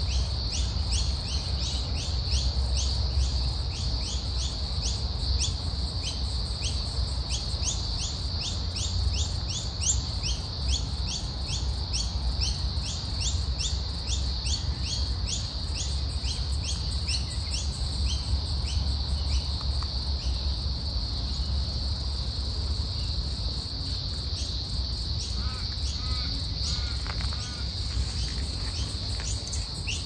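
Outdoor insect and bird chorus: a steady high-pitched insect drone with a run of rapid, repeated rising chirps, about three a second, that fade out past the middle, over a low rumble.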